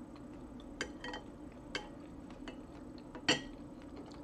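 Spoon clinking against a soup bowl during eating: a few light taps, then a louder clink with a short ring a little past three seconds.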